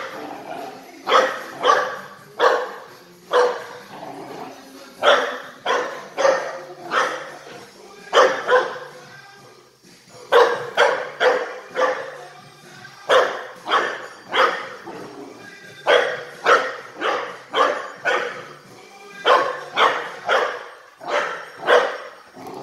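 Small dog barking in quick runs of three to five sharp barks, just under half a second apart, with short pauses between runs. Music plays faintly underneath.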